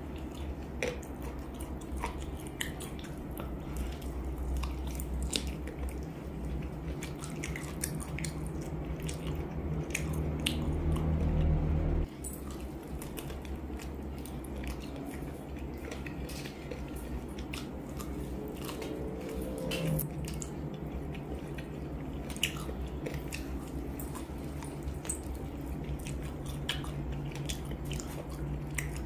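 Close-up eating sounds of spicy chicken feet: repeated wet, sticky bites and chewing with many small sharp clicks as skin and cartilage are pulled off the bones. A steady low hum runs underneath and drops abruptly about twelve seconds in.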